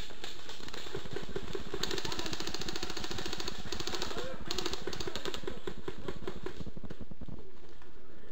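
Airsoft rifles firing two long full-auto bursts, each about two seconds, a fast even rattle of shots starting about two seconds in.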